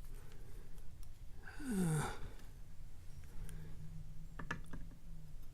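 A man sighs: one breathy exhale that falls in pitch. A few faint sharp clicks of small padlock parts follow near the end, as the lock is taken apart.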